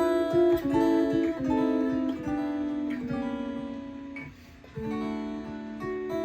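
Clean-toned guitar playing a picked melodic line, single notes and chords ringing into each other, with a short lull about four and a half seconds in before a new chord rings out.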